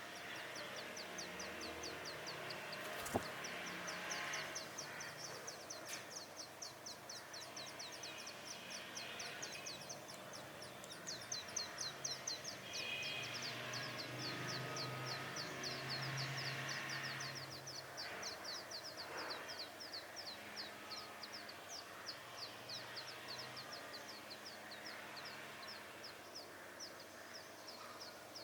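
Brown rock chat nestlings begging: a long unbroken run of short, high, thin calls, several a second.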